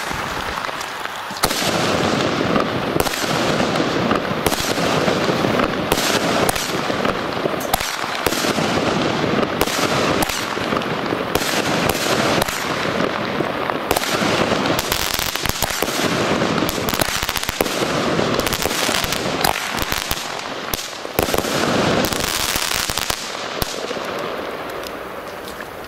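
Consumer firework battery (a 16-shot Festa & Fireworks 'Monster' cake) firing shot after shot: repeated launches and strong shell bursts overhead, fading out near the end as the cake finishes.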